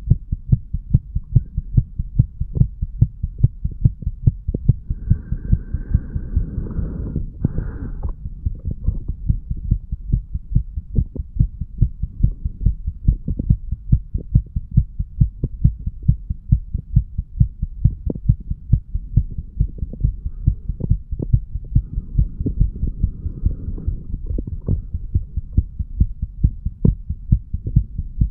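Heartbeat of a 35-year-old man heard over the mitral valve area of the chest: a steady, regular rhythm of paired low lub-dub thumps. A soft rushing noise rises over it twice, about five seconds in and again past twenty seconds.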